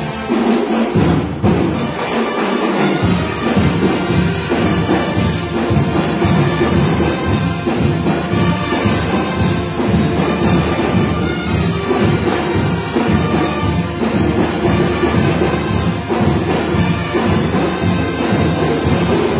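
Marching band playing: trumpets and saxophone over a steady drum beat.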